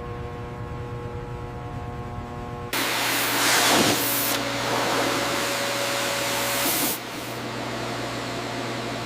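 Steady machine hum with several held tones, cut off sharply a few seconds in by a loud, steady hiss with a low hum beneath it; the hiss drops in level a couple of seconds before the end.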